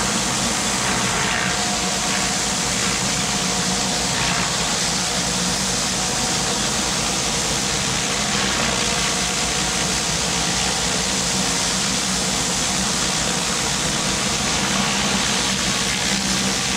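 Pressure washer running steadily: a constant engine drone under the hiss of water from the surface cleaner spraying the concrete.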